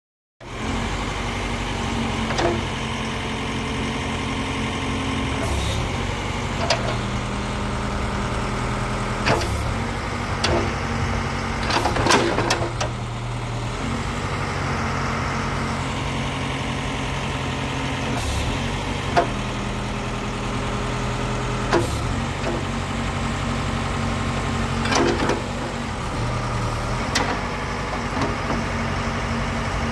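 Case 580 SK backhoe loader's diesel engine running steadily as the backhoe arm is worked, its note stepping up and down as the hydraulics take load. Occasional short knocks from the arm and bucket are heard about ten times.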